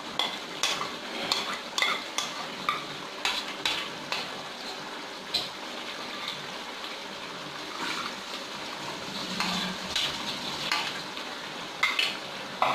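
Metal spoon scraping and clinking repeatedly against a bowl as leftover koftas are scraped into a pot of curry, over the steady hiss of the masala simmering. The clinks come thick in the first few seconds, thin out in the middle, and pick up again near the end.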